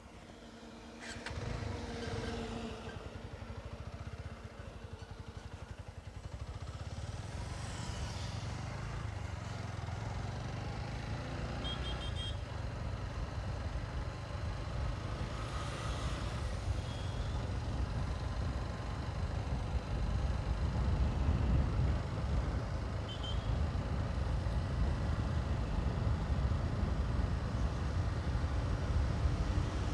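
Motorcycle engine running as the bike pulls away and rides on, its rumble building gradually, with wind rushing over the helmet-mounted microphone.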